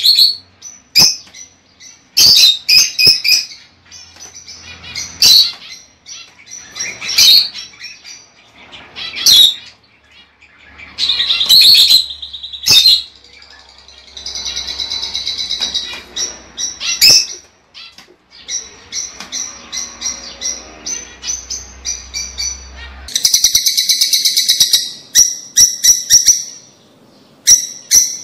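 Lovebirds calling: a run of sharp, high chirps and shrieks, with two stretches of rapid chattering, one around the middle and one about two-thirds of the way in, then quick repeated chirps near the end.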